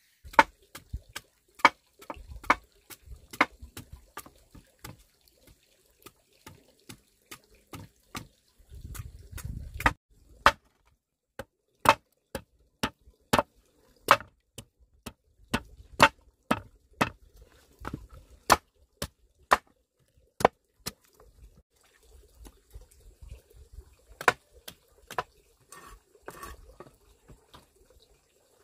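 A long irregular series of sharp knocks or taps, roughly one to two a second, with a faint low rumble between some of them.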